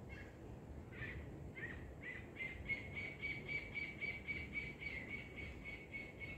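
A bird calling: a few separate notes, then from a little over two seconds in a fast run of repeated notes at one steady pitch, about five a second.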